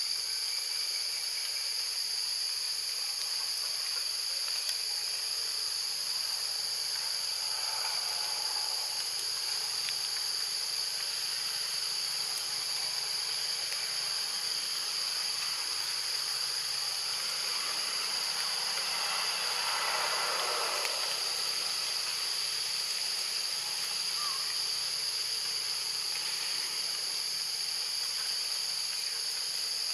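Steady, high-pitched insect chorus droning without a break in forest trees, with a short swell of noise about two-thirds of the way in.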